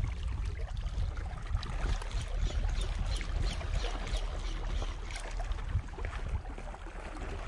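Sea water lapping and trickling among shoreline rocks over a low wind rumble on the microphone. A run of light ticks in the middle comes as the spinning reel is cranked.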